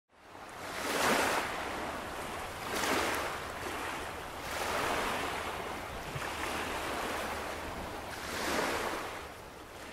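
Waves washing in, a rushing hiss that swells and ebbs about four times, fading in at the start.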